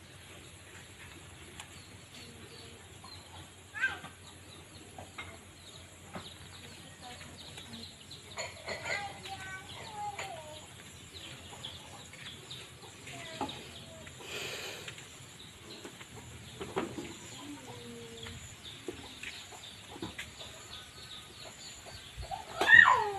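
Chickens calling now and then around a farmyard, with the loudest call, a short falling cry, near the end.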